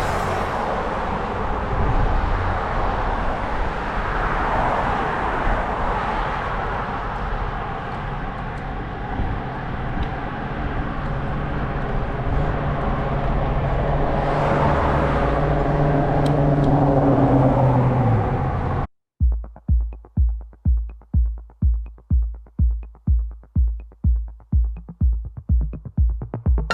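Wind and traffic noise from a bicycle ride along suburban streets, with a vehicle passing and its engine tone falling away. About 19 seconds in, this cuts off abruptly and is replaced by electronic music with a steady kick-drum beat.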